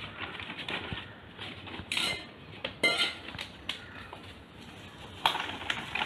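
A stainless steel mixing bowl knocks and clinks, with paper rustling, as sifted flour and cocoa powder is tipped and brushed off baking paper into it. A louder, steady brushing scrape starts about five seconds in.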